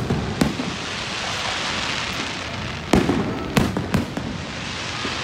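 Aerial fireworks shells bursting: a sharp bang shortly after the start, then a cluster of three bangs about three to four seconds in, over a constant noisy hiss between them.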